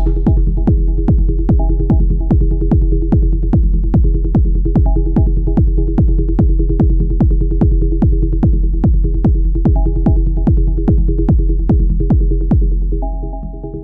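Elektron Model:Cycles groovebox playing a hypnotic techno pattern: a steady four-on-the-floor kick drum at about two beats a second under a sustained low synth drone, with a short higher synth figure coming back every few seconds. Near the end the kick drops out and the drone carries on.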